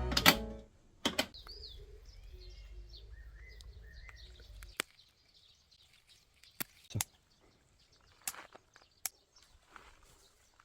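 Background music cuts off just after the start. Small birds then chirp faintly in short twittering calls. A handful of sharp clicks or knocks are scattered through, the loudest about a second in and about seven seconds in.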